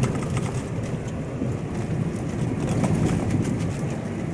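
Steady engine and tyre noise inside a moving Mahindra Bolero's cabin, with scattered faint ticks.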